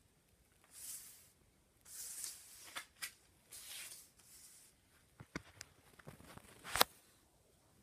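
Handling noise: three or four rustling swishes in the first half, then a run of sharp clicks and knocks, the loudest about seven seconds in.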